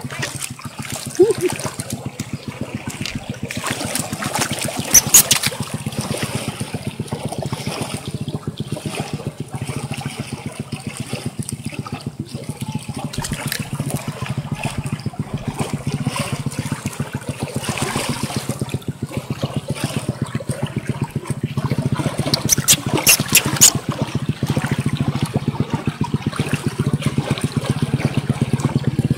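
Shallow river water running and trickling over stones, with splashing as a baby monkey is dipped and washed in it by hand; a few louder splashes about five seconds in and again a little past twenty seconds.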